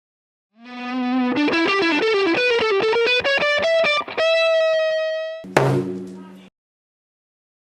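Short intro music: a quick run of plucked-string notes rising and falling, a held note, then one sharp chord hit with a drum that rings out and stops.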